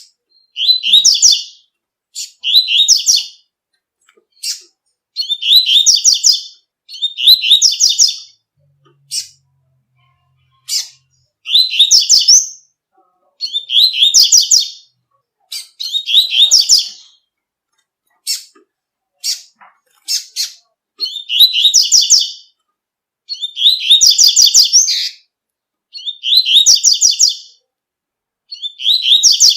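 Double-collared seedeater (coleiro) singing its 'tui-tui' song: short, high, fast-trilled phrases about a second long, repeated every two seconds or so, with single sharp chirps in the longer pauses.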